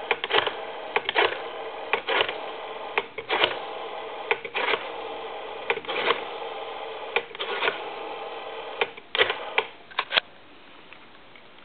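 Rotary dial of a Western Electric desk telephone being turned and let run back, a series of clicks, over a steady tone on the line. Both stop a little after ten seconds in.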